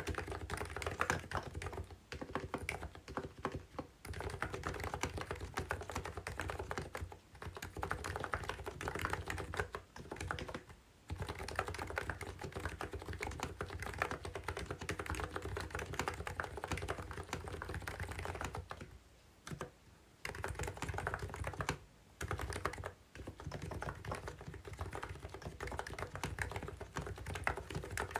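Fast typing on a COX CNK84W mini keyboard with capacitive (contactless) switches: a steady clatter of keystrokes, broken by a few short pauses.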